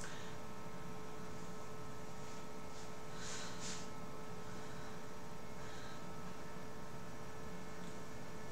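Steady electrical mains hum with constant tones, with two brief soft hisses a little over three seconds in.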